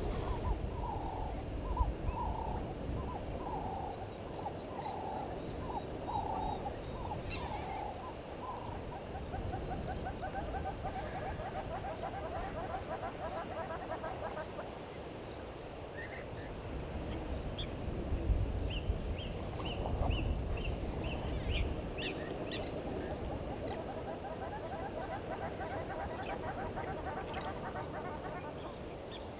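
Wild birds calling: a string of evenly spaced repeated notes that runs into a fast rattling series, then a few quick higher notes and another rattling series later on. A low rumble comes in around the middle.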